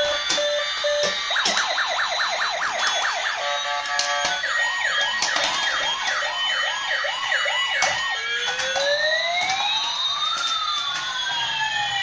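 Electronic siren sound effect from a battery-operated toy police car: a fast chirping warble through the middle, then slow wails rising and falling, two of them overlapping near the end, with scattered sharp clicks.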